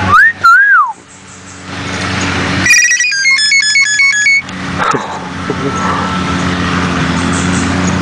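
Hill myna mimicking a cell phone: one loud whistled note that rises and wavers, then, a couple of seconds later, a quick ringtone-like run of stepped notes lasting about a second and a half, over a steady low hum.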